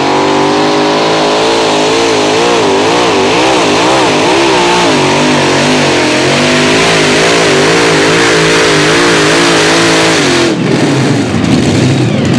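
Supercharged V8 Hemi engines of the Four NoHemi modified pulling tractor running at full power through a sled pull, the note wavering up and down in pitch again and again. About ten and a half seconds in, the engine note cuts off abruptly to a rougher, lower sound as the pull ends.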